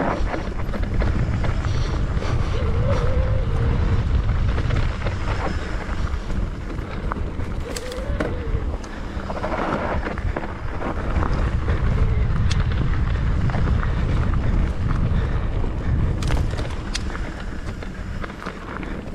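Wind buffeting the microphone of a mountain bike's camera during a fast descent, with the bike clattering and rattling over rough trail, and a few short wavering squeals.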